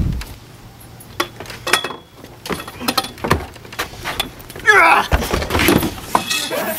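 Scattered knocks and thumps of people scrambling on a wooden deck and playset. A brief wavering cry comes about five seconds in.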